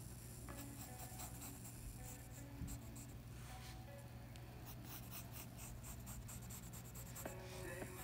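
Pencil scratching on sketchbook paper in many short, quick strokes, faint, over a steady low hum.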